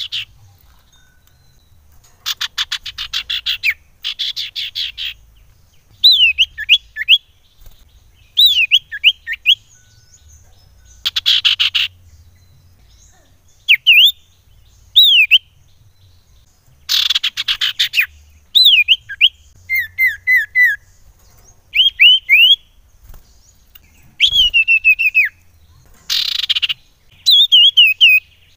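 Common iora singing: rapid buzzy trills about a second long alternate with groups of two to four clear whistled notes that sweep down in pitch, with short pauses between phrases.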